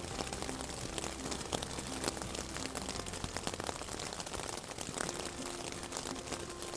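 Rain pattering on a nylon tent: an even hiss with many small, irregular drop hits.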